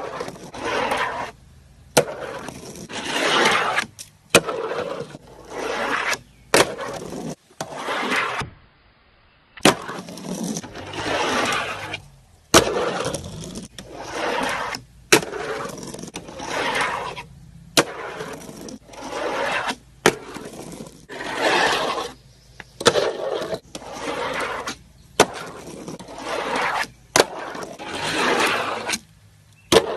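Tech Deck fingerboard rolling up and down small ramps: repeated rough rushes of its tiny wheels, each a second or two long, broken by sharp clacks as the board pops and lands, about a dozen times.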